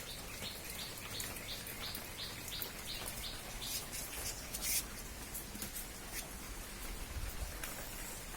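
Steady rain with drops pattering on surfaces, and a small bird giving short high chirps, about three a second, for the first few seconds.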